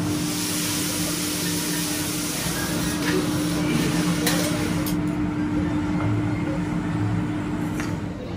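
Teppanyaki griddle station: a steady mechanical hum with a hiss from the hot steel plate, and a few sharp metal clicks of the chef's spatula on the griddle around the middle.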